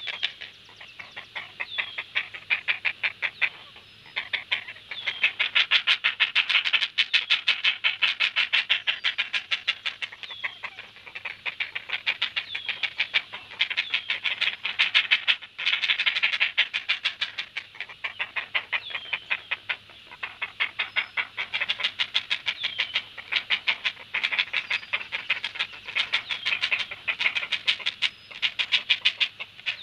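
Great blue heron chicks giving their food-begging calls at a feeding. The calls come as fast runs of harsh ticking notes, many a second, in bouts of a few seconds with short breaks.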